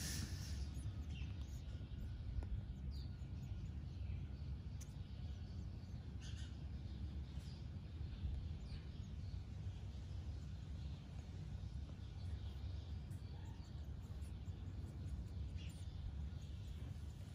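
Faint background noise: a steady low rumble, with a few short, faint high chirps scattered through.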